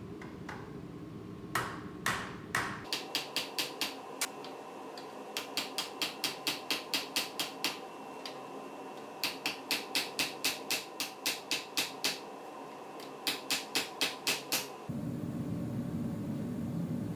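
Blacksmith's hammer striking hot steel on an anvil: a few single heavy blows, then runs of quick ringing strikes at about five a second with short pauses between. Near the end the hammering stops and a steady low rushing noise starts.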